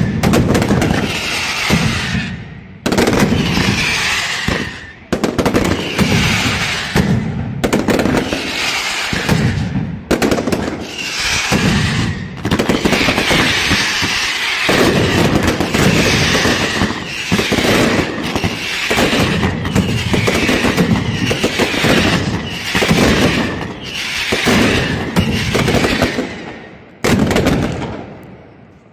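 Mascletà firecrackers going off in dense rolling volleys of bangs, so close together they merge into a continuous crackling roar that swells and eases in waves, with brief lulls, then dies away near the end.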